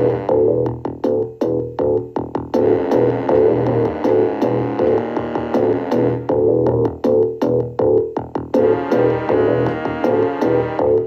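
Electronic music: sustained synthesizer or keyboard chords over a steady percussive beat. The high parts drop out for a couple of seconds around the middle, then return.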